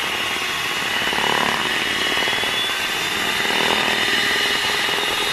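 Electric hand mixer running at steady speed, its twin wire beaters churning a thick cream cheese and whipping cream mixture in a bowl, with a steady high-pitched motor whine.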